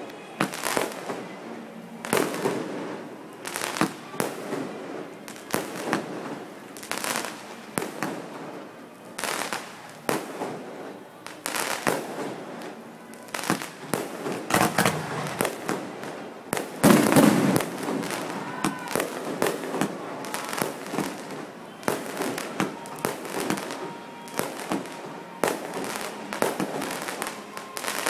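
Aerial fireworks shells bursting overhead in a steady series of sharp bangs, one or two a second, with the loudest burst about 17 seconds in.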